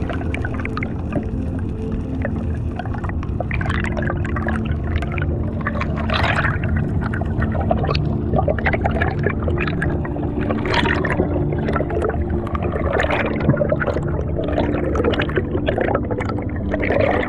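Underwater bubbling and gurgling as air bubbles rise past the camera, coming in irregular bursts. Slow ambient music with steady sustained tones plays underneath.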